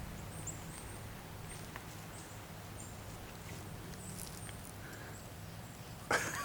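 Quiet woodland ambience: faint, short, high chirping calls scattered throughout over a low steady hum, with a brief louder rustle near the end.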